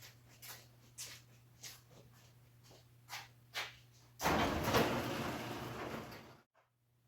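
Footsteps, a light knock about every half second, over a steady low hum; then a loud rushing noise for about two seconds that cuts off suddenly.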